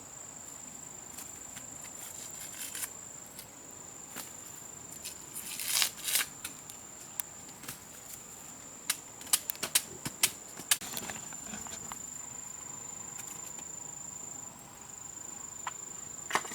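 Steady high-pitched insect drone in rainforest, with a rustling burst about six seconds in and a run of sharp clicks and knocks around nine to eleven seconds.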